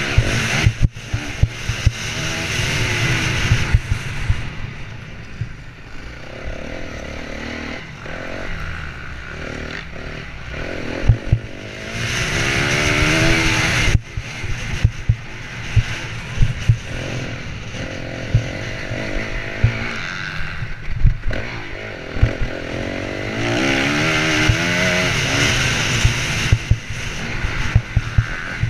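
Honda CRF250R's single-cylinder four-stroke engine revving hard under race throttle, its pitch climbing and dropping in repeated surges as it is ridden through the gears and backed off for turns, with frequent knocks and thumps from the bike bouncing over the rough dirt track. Heard from the rider's helmet.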